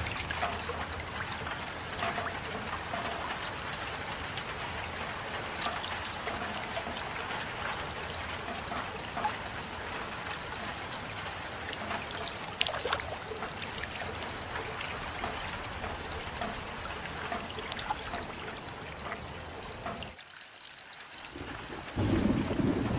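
Steady rain with many individual drops ticking and trickling. About twenty seconds in it briefly goes quieter and duller, then a louder low rush starts near the end.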